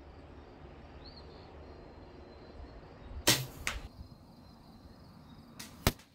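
Daisy Red Ryder spring-piston BB gun shooting: a sharp snap about three seconds in, with a fainter snap just after it, and another sharp snap near the end.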